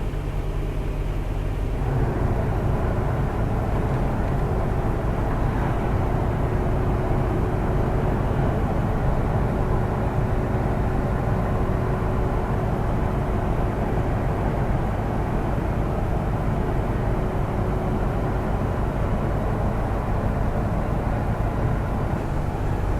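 Volvo semi truck's diesel engine and road noise heard from inside the cab while driving, steady, getting a little louder about two seconds in.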